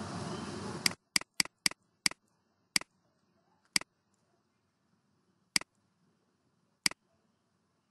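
Computer mouse clicking. A steady background hiss cuts off suddenly about a second in. Then comes a quick run of about five sharp clicks, followed by single clicks one to two seconds apart.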